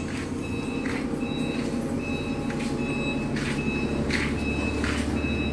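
Forklift reversing alarm beeping steadily, a little more than once a second, over the forklift's running engine.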